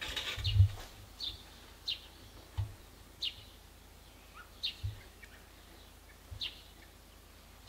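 A small bird calling outdoors, repeating short high, falling chirps every second or so. There is a low thump just under a second in, and fainter thumps later.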